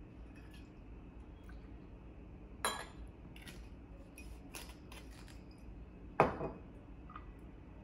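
Glass gin bottle and metal jigger handled on a stone bar top. A sharp clink comes a little under three seconds in, then a few light clicks as the bottle is recapped. About six seconds in there is a loud knock with a smaller one just after, as the bottle is set down on the counter.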